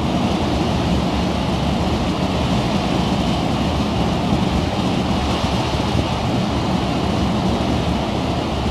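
Steady rushing noise on the deck of a moving car ferry: churning wake water over a low engine rumble, with wind on the microphone.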